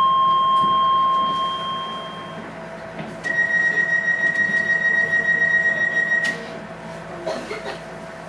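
Docklands Light Railway train's door-closing warning: a single electronic chime that fades away over about two seconds, then about a second later a high warning tone pulsing rapidly for about three seconds that cuts off suddenly, as the doors close.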